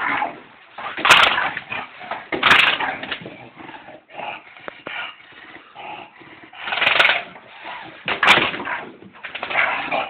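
A dog attacking window blinds: about four loud bursts of the slats clattering and rattling as it grabs at them, with the dog's own noises between.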